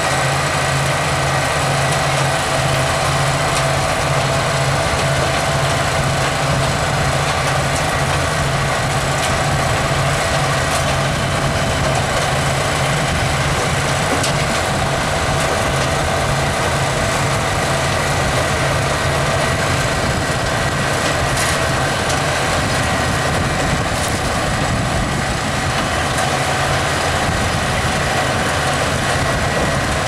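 John Deere 8245R tractor engine running steadily under load while towing a Grimme SE 150-60 twin-row potato harvester, with the harvester's driven webs and elevators running. It is a constant, even drone with a steady hum and no changes in pitch.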